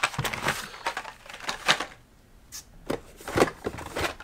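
Blister-packed Hot Wheels cars on their cardboard backing cards, and the cardboard case box, being handled: a run of irregular light plastic clacks, taps and rustles.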